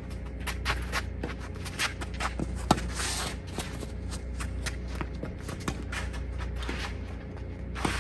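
A tennis rally: sharp racket-on-ball strikes and ball bounces, the strongest about a third of the way in, over the players' quick, scuffing footsteps on the court.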